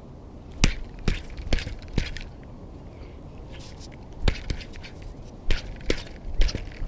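Sharp clicks and knocks from a baitcasting rod and reel being handled close to the microphone: a run of four about half a second apart, then a few more scattered near the end, over steady low background noise.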